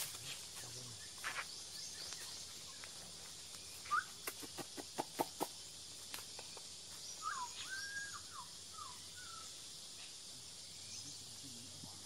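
Forest ambience: a steady high insect drone, with a bird giving short whistled, gliding notes around four seconds in and again near eight seconds. A quick series of sharp clicks about four to five and a half seconds in is the loudest thing.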